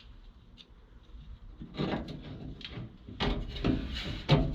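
Metal clattering and knocking inside a pickup truck door as the window regulator is shifted into place and its screws are started. There is a short irregular run of knocks and rattles from about halfway in, loudest just before the end.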